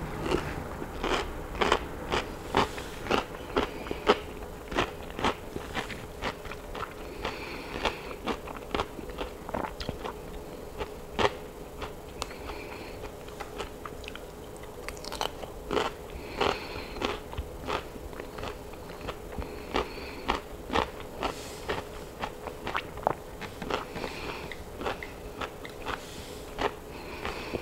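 Close-up crunching of raw cucumber being bitten and chewed: a quick, irregular run of crisp, wet crunches.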